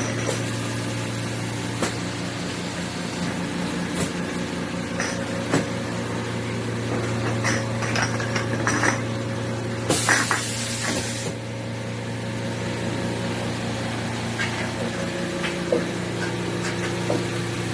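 Six-head automatic filling machine with container conveyor running: a steady motor hum with scattered clicks and clanks from the mechanism and containers, and a hiss lasting about a second around ten seconds in.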